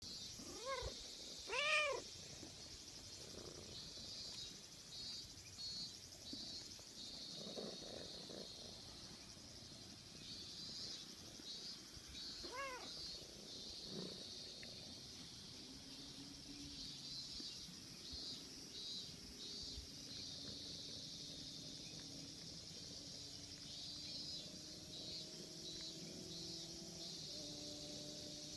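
Silver tabby kitten meowing: two short meows in the first two seconds, the second much the loudest, and one more about twelve seconds in. Between them a steady high buzz of insects.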